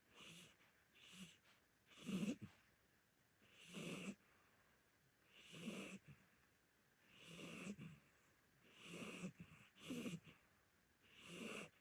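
A sleeping senior Korean shorthair cat snoring faintly, one breath roughly every one and a half to two seconds.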